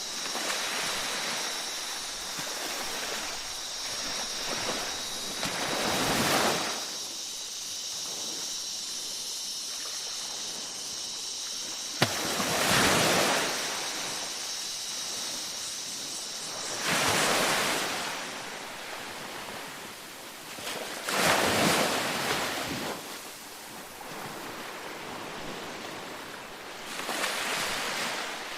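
Small waves breaking and washing up on a sandy beach, five gentle surges a few seconds apart over a steady wash of surf. A steady high insect buzz runs under the first half and fades out.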